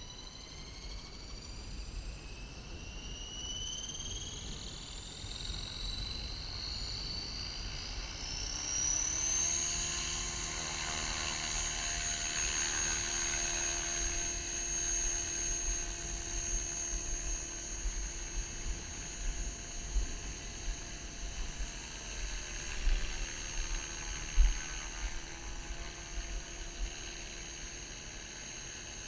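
Align T-Rex 600ESP electric RC helicopter spooling up: a whine that climbs steadily in pitch for about nine seconds, then holds at a steady pitch once head speed is reached as the helicopter lifts off and flies, with the swish of the rotor blades.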